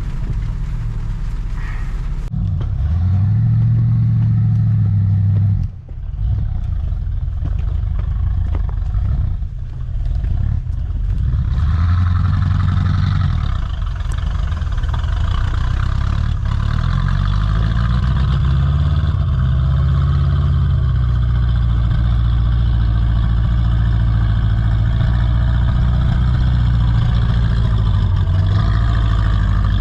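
Off-road truck engine under load climbing a steep washed-out trail, revving up and down in the first half with a brief drop about six seconds in, then holding a steady higher pitch.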